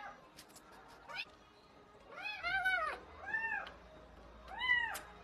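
Young kitten mewing repeatedly in short, high-pitched calls: one trailing off at the start, then three more from about two seconds in, each rising and falling in pitch.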